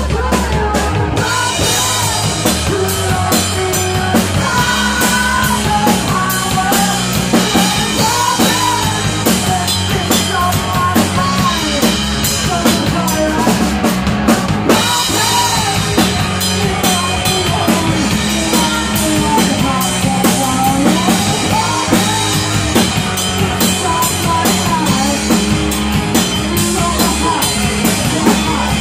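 Live rock band playing loud, with a drum kit and cymbals driving a steady beat under amplified instruments.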